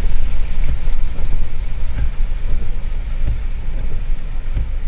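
Heavy rain drumming on a car's roof and windscreen, heard from inside the moving car, over a steady low rumble of the car on the road.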